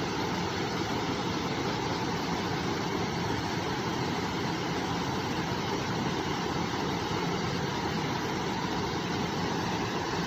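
River water rushing and flowing, a steady, unbroken noise.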